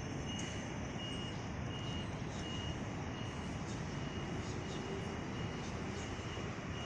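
Steady city street traffic noise, with a short high electronic beep repeating about twice a second.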